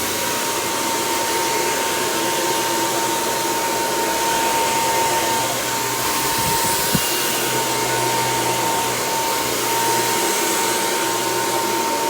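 Handheld hair dryer running steadily: a rush of blown air with a constant whine over it.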